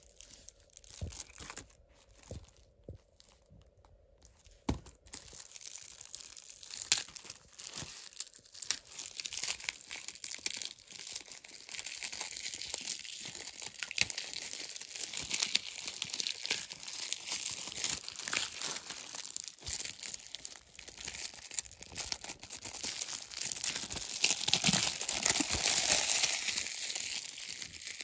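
Plastic shrink-wrap crinkling and tearing as it is peeled off a Blu-ray case, a continuous crackle from about five seconds in that is loudest near the end. Before that, a few knocks of the case being handled.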